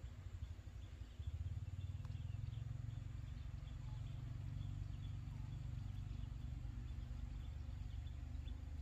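Outdoor ambience: faint, repeated high chirps over a steady low rumble that grows a little louder about a second in.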